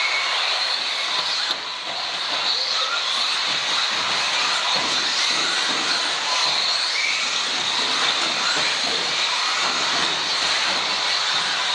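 A pack of radio-controlled electric off-road buggies racing together on a carpet track in the opening seconds of a race. Their motors make a steady high whine over tyre hiss, with short rising and falling whines as single cars accelerate and brake.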